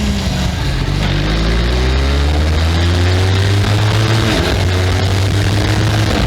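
Benelli 502C's 500 cc parallel-twin engine through its stock exhaust, revving up under acceleration. The pitch drops sharply about four seconds in, as at an upshift, and then climbs again.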